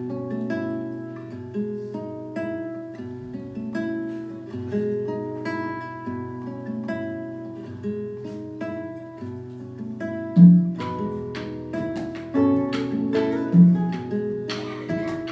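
Two nylon-string acoustic guitars playing an instrumental passage of plucked melody and chords. About ten seconds in, percussion joins with low drum hits every second or two.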